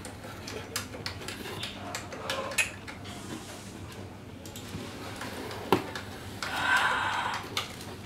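Small clicks and taps of plastic and card pieces being handled and fitted in a tabletop model, with one sharper click a little before the six-second mark and a short rustle soon after.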